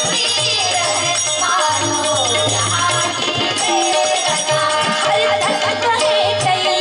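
Devotional bhajan music: a melody over a pulsing drum beat, with jingling, rattling percussion.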